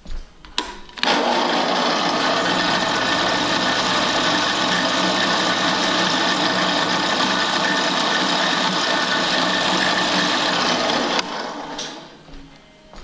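Drill press switched on, running steadily for about ten seconds while a rotary engine side seal is fed against the spinning bit to take about five thousandths off its end, then switched off and winding down near the end. A couple of clicks come just before it starts.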